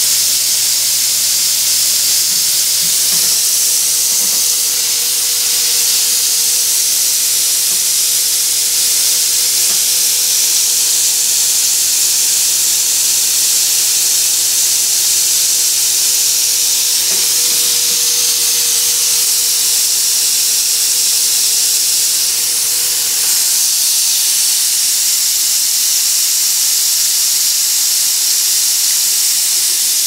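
Steady, loud hiss of steam venting from a two-group La Cimbali espresso machine that has been opened up to steam during warm-up, heating the machine before use. A low steady hum runs under the hiss and stops about 23 seconds in.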